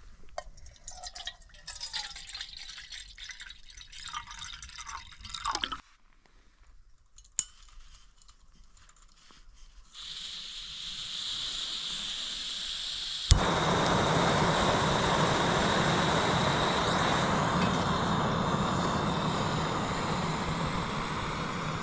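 Liquid poured with a rising, filling sound, then a small camping gas stove: gas hissing, a sharp igniter click about 13 seconds in, and the burner running steadily after it.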